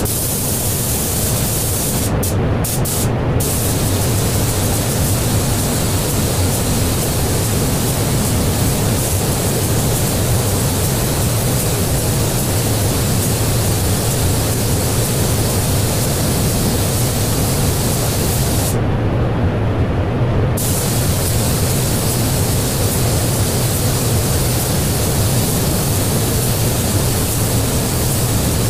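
Gravity-feed spray gun on an air hose hissing steadily as it sprays paint, over a steady low hum. The hiss breaks off a few times in quick succession about two seconds in, and once more for about two seconds past the middle, as the trigger is let go.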